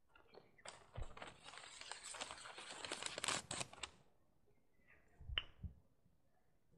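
Rustling and clicking of something handled close to the microphone, for about three seconds from just under a second in, then a single sharp click with a soft thump a little after five seconds.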